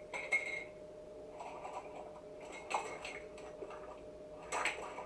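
Kitchen utensils being handled: a few sharp clicks and clinks of measuring spoons and small containers being picked up and set down, the loudest near the end, over a faint steady hum.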